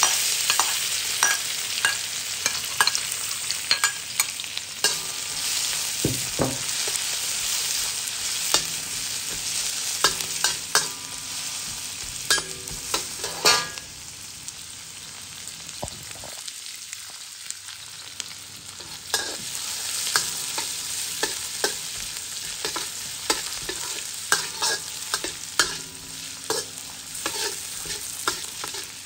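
Sliced ginger and minced aromatics sizzling in hot oil in a wok, with a metal wok spatula scraping and clicking against the pan as they are stirred. The sizzle is strong through the first half, dies down for a few seconds past the middle, then picks up again.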